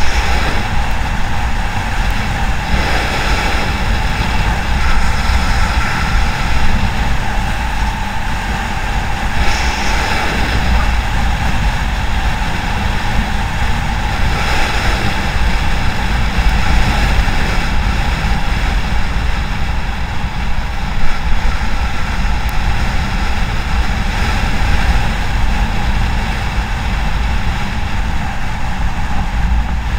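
Wind buffeting the microphone of an action camera on a moving motorcycle, a constant rumble over the steady drone of the bike's engine and road noise.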